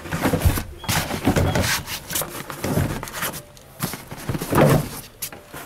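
Irregular knocks, rattles and scrapes as a car seat back is handled on its mounting hooks.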